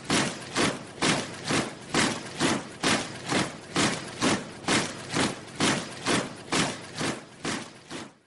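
Steady marching footsteps, about two heavy steps a second in an even rhythm, cutting off suddenly at the end.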